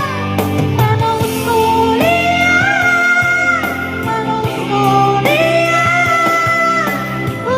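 Background music: a song with a sung melody over guitar and a steady bass.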